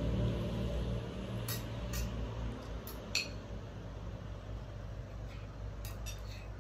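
Metal spoons clinking and scraping against ceramic plates a few times during eating, the sharpest clink about three seconds in, over a low steady hum.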